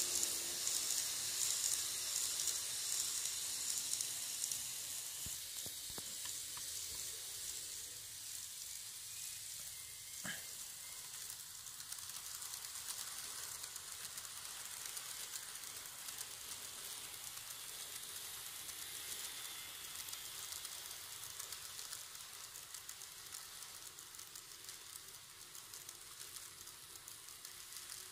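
N-gauge model train, a 651 series coupled with an E353, running on its track with a steady high hiss of wheels and motor. It fades gradually as the train runs on.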